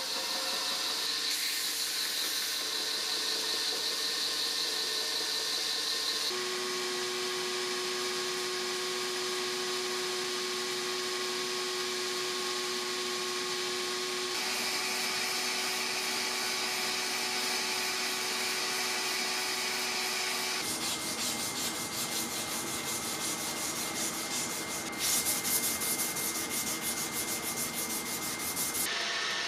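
Belt grinder running with a steel chopper blade held against the moving belt, grinding the blade in a series of short cut-together passes over a steady motor hum. Near the end comes the rasp of hand sanding, sandpaper stroked back and forth along the blade.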